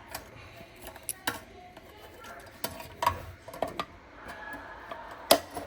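Scattered light metallic clicks and clinks of dryer parts and tools being handled while a new heating element is fitted, with a sharper knock near the end.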